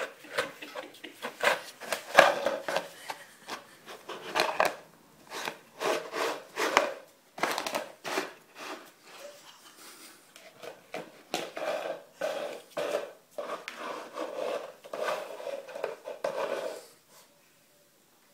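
A puppy pushing and mouthing a bowl across a parquet floor: irregular scraping and knocking of the bowl against the floor, stopping near the end.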